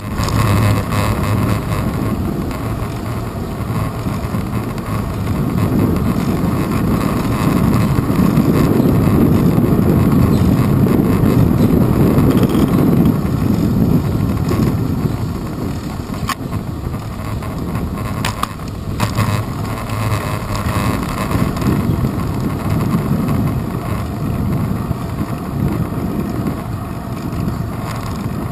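Wind buffeting the microphone of a handlebar-mounted GoPro Hero 2 on a moving bicycle, mixed with road rumble and vibration from the bike; it swells loudest around the middle, with a few sharp clicks in the second half.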